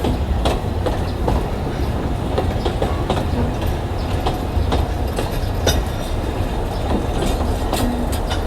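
Alishan Forest Railway narrow-gauge train on the move: a steady low rumble with irregular clicks and clacks of the wheels over the rail joints.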